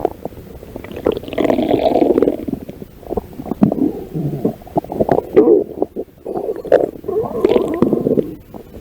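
Stomach growling: about four long, irregular rumbling bouts with short gaps between them.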